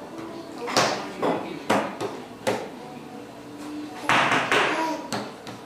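A baby slapping his hands on a plastic high-chair tray, drumming: sharp smacks about every half second, then a louder, denser flurry about four seconds in.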